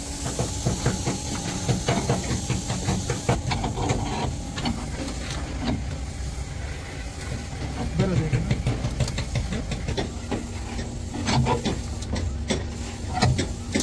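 Metal hand tools clicking and clattering rapidly in quick irregular runs on a stripped steel truck cab, over a steady hiss.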